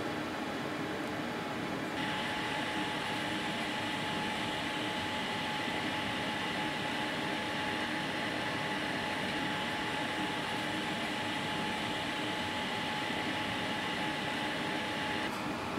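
Steady mechanical background hum, like a room fan or air conditioner. A thin, higher whine joins it about two seconds in and drops out shortly before the end.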